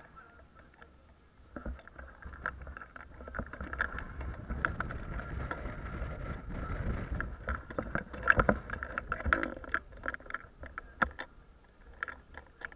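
Wind and road rumble in a Jeep driving with its top off, with scattered clicks and rattles. The rumble builds about a second and a half in and eases off after about ten seconds.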